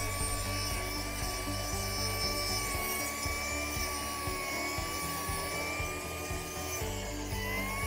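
Dekton M21-CC2302 cordless brush cutter running and cutting grass: a steady high motor whine that wavers slightly in pitch. It runs smoothly with its blade now fitted the right way round.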